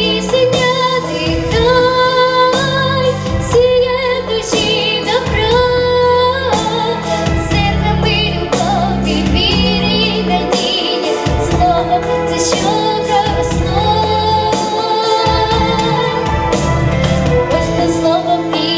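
Girl singing a Ukrainian song solo into a microphone, the melody held with vibrato, over an instrumental backing track with bass and percussion.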